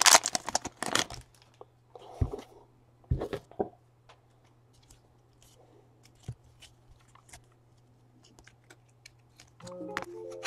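Foil trading-card pack wrappers crinkling and tearing open in the hands, in a few short rustling bursts. Then come light, quick clicks as the cards are thumbed through one by one, over a steady low hum. Near the end there is a short run of falling tones.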